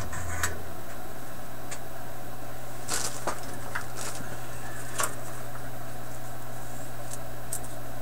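Scattered small clicks and light taps, about a dozen at uneven intervals, over a steady low hum and hiss.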